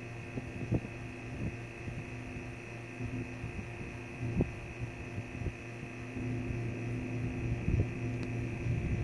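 Steady mechanical hum with a strong low tone and a few fainter higher tones, broken by a few soft low thumps.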